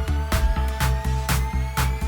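Background electronic dance music with a steady beat of about two drum hits a second over held synth notes and bass, and a synth tone slowly rising in pitch.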